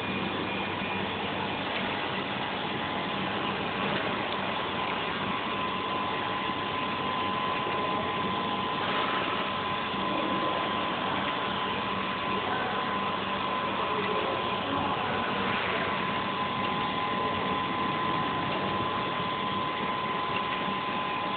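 Steady mechanical background noise of a machine workshop, with a thin steady whine that grows stronger about eight seconds in.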